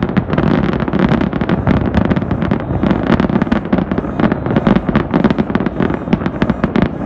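Fireworks barrage: a dense, continuous run of bangs and crackles, many a second.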